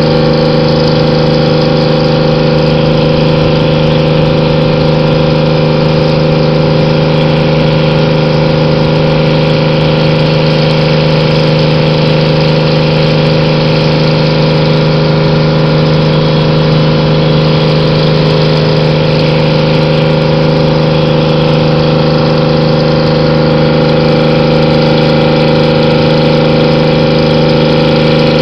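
A lobster boat's engine running steadily under way: a loud, even drone that holds the same pitch throughout.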